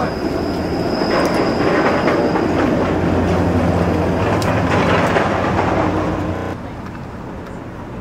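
Streetcar rolling past on street tracks: a loud, steady rumble with a low hum that drops away suddenly about six and a half seconds in.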